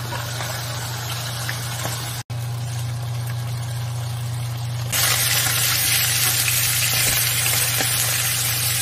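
A steady low hum with a soft hiss, then, about five seconds in, a louder, even sizzling as fish pieces fry in an oiled pan.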